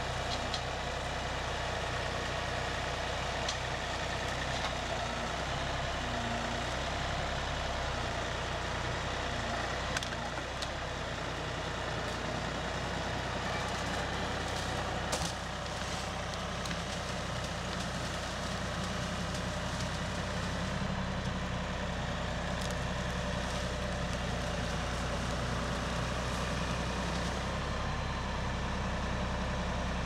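Kioti compact tractor's diesel engine running steadily while it handles a log on its pallet forks, with a couple of light knocks about ten and fifteen seconds in.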